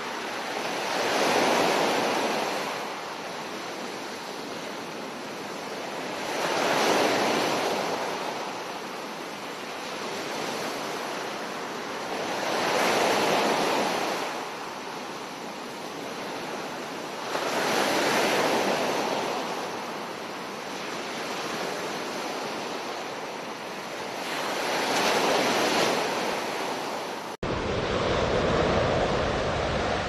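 Ocean surf breaking on a beach, the rush of each wave swelling and falling away about every five to six seconds, five waves in all. Near the end the sound cuts to a steadier, deeper surf rumble.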